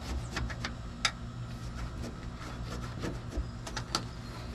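Microfiber towel wiping the plastic ledge of a pickup's roof-mounted third brake light opening, with scattered sharp clicks and taps, the loudest about a second in. A steady low hum runs underneath.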